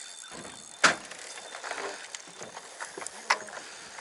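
Handling noise on a small fishing boat while a freshly caught sea bass is handled at the gunwale: a sharp knock about a second in and another near the end, with rustling and clatter between.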